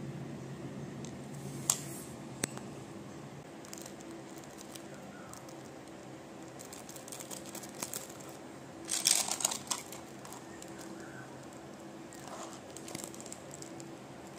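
Handling noise from a small toy bus model: sharp clicks and light taps as it is moved about, and a burst of crinkling clear plastic about nine seconds in. A low steady hum sits underneath.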